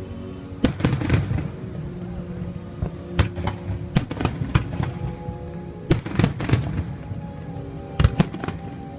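Aerial fireworks going off in a string of sharp bangs, some coming in quick clusters of two or three, with music playing underneath.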